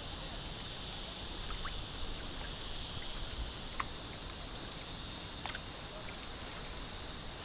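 Steady waterside ambience: low rumble of wind and lapping water with a constant high hiss, broken by a few faint clicks.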